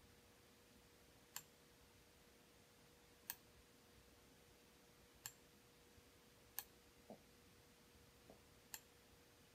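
Five short, sharp clicks, one every one and a half to two seconds, and two softer low knocks in the second half, over a near-silent room with a faint steady hum.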